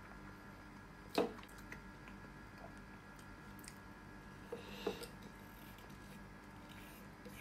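Fork clicking and scraping against a ceramic plate while cream is scraped up. There is one sharp click about a second in, two more in the middle and a few light ticks.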